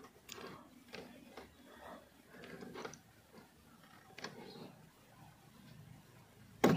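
Small plastic clicks and rattles of a tight wiring connector being worked back and forth on a Tata Altroz's bonnet alarm switch, ending in a sharp click near the end as the plug pulls free.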